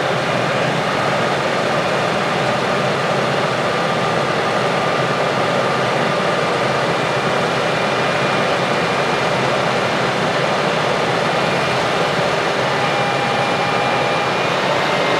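Heavy farm machinery running steadily under load: a dense, even mechanical noise with a faint steady whine.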